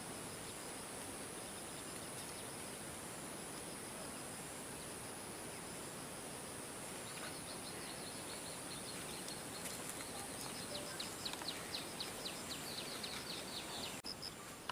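Rural outdoor ambience: a steady hiss of background noise with a thin, high continuous insect drone. From about halfway, a bird's rapid repeated chirps join in and grow louder toward the end.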